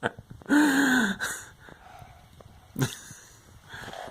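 A child's voice making a silly drawn-out vocal noise about half a second in, sliding a little down in pitch, then a short sharp sound near three seconds in.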